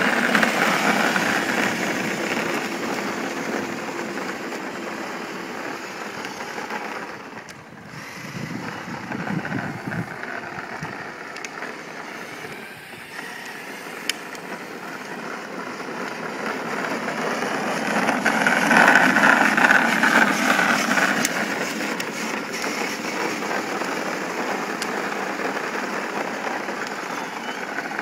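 Stock 12-volt Power Wheels Kawasaki Super Shock ride-on dirt bike driving on pavement: its electric gear motors whine and its hard plastic wheels rumble. The sound dips for a few seconds, then swells to its loudest about two-thirds of the way through as the bike comes close, and eases off again.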